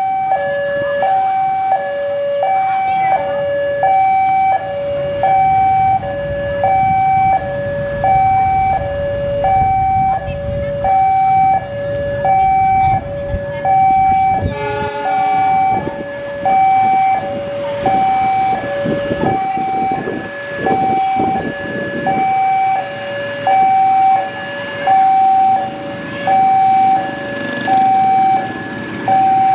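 Railway level-crossing alarm sounding a steady two-tone warning, high and low tones alternating about once a second. From about halfway on, a low rumble with irregular knocks joins it.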